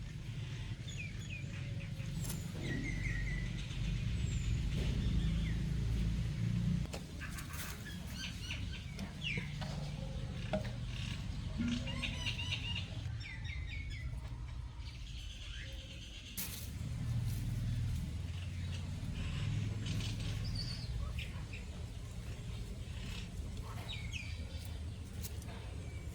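Small birds chirping and tweeting in short calls and quick trills, over a steady low rumble.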